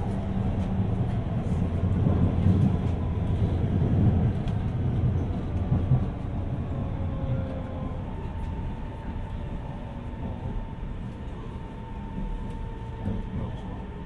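Guangzhou Metro B2 series subway car running, heard inside the carriage: a loud low rumble from the wheels and running gear for the first six seconds or so, then quieter, with a faint whine that slowly falls in pitch as the train slows.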